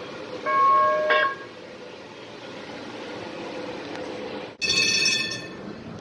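CTrain light-rail vehicle sounding its horn in a short blast of about a second, over the steady running noise of the train. Near the end a train bell rings brightly for about a second and fades.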